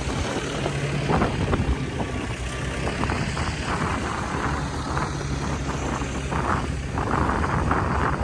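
Engine of the machine with lifting forks running steadily, under wind buffeting the microphone, with a few faint knocks about a second in.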